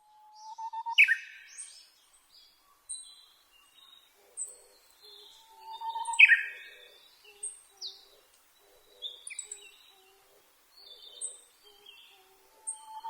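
Japanese bush warbler (uguisu) singing its 'hō-hokekyo' song: a held whistle that swells, then a quick falling flourish. It sings twice, with a third song starting at the end. Other small birds chirp faintly between the songs.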